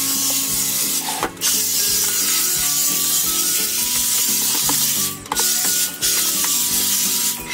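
Dyson cordless stick vacuum running with a steady high hiss, cutting out briefly about a second in and twice around five seconds, as its trigger is let go between passes.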